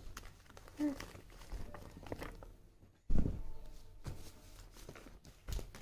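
Quiet paper handling: a stiff paper alphabet chart rustling and being moved about on a bed, with small clicks and soft knocks. There is a louder thump about three seconds in.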